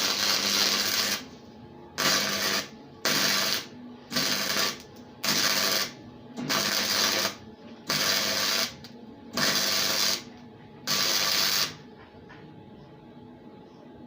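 Electric welder arcing in a series of short welds, about nine bursts of crackling hiss of under a second each with brief pauses between, a low hum under each; the welding stops about twelve seconds in.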